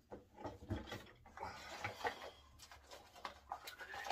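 Handling noise: small clicks and rustles as razor gear and a small box of razor blades are picked up off the counter.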